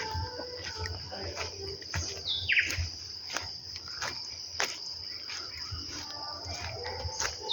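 Morning birdsong: scattered short bird chirps, with a downward-sweeping call about two and a half seconds in, over a steady high-pitched insect trill.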